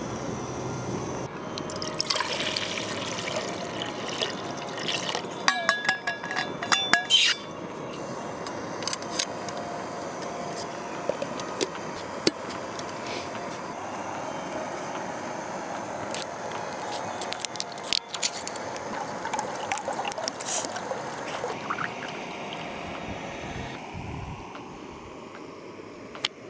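Water or another liquid sloshing and trickling steadily, with a quick run of sharp clinks and short ringing knocks about six to seven seconds in and scattered clicks later.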